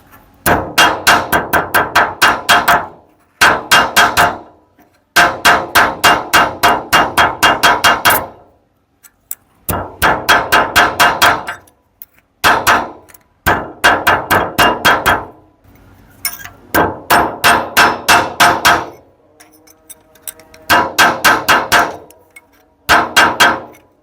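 A hammer striking metal in quick runs of blows, about five strikes a second, each run lasting one to three seconds with short pauses between, the metal ringing under each blow.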